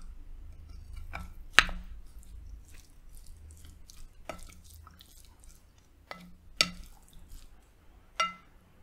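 Wooden spoon and fork stirring and scraping food on a glass plate, with sharp clinks against the glass. The loudest clink comes about one and a half seconds in, and others follow at roughly four, six and a half and eight seconds, the last with a short ring.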